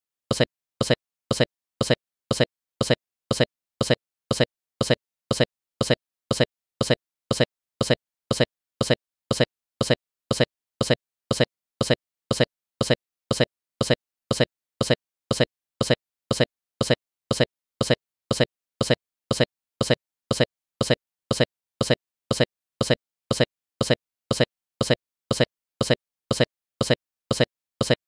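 A short, sharp click repeating in an even, machine-steady rhythm a little over twice a second, with dead silence between clicks, typical of a digital audio glitch.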